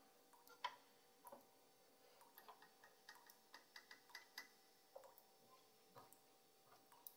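Near silence: quiet room tone with a faint steady hum and scattered soft, irregular clicks.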